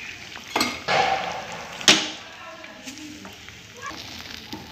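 Eggs frying in hot oil in a pan, a steady sizzle, with a sharp knock about two seconds in.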